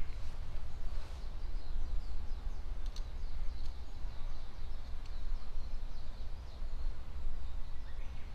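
Faint songbirds chirping in a beech forest, many short high calls, over a steady low rumble. There is a single brief tick about three seconds in.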